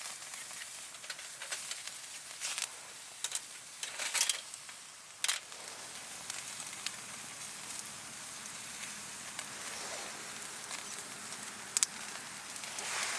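Wood campfire crackling: a steady hiss with sharp pops scattered through it, the loudest a few seconds in and again near the end.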